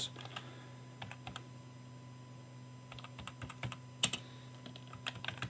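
Typing on a computer keyboard: scattered key clicks, coming thicker and faster from about three seconds in.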